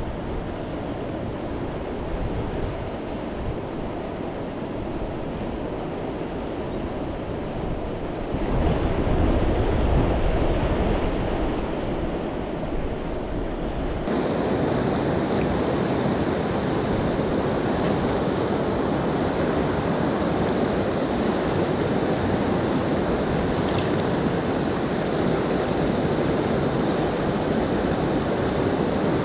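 Fast river water rushing over rapids, a steady noise with some wind on the microphone. The sound jumps abruptly louder about eight seconds in, drops back a few seconds later, and steps up again about fourteen seconds in.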